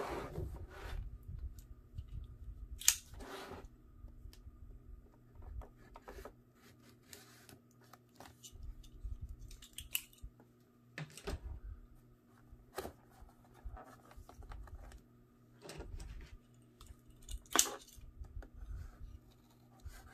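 Cardboard shipping box being handled and shifted on a table: rustling and scraping of cardboard with scattered sharp clicks and knocks, the loudest about three seconds in and again near the end.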